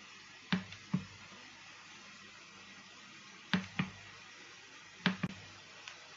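Steady low room hiss with three pairs of sharp clicks, the two clicks of each pair a fraction of a second apart, coming about half a second, three and a half seconds and five seconds in.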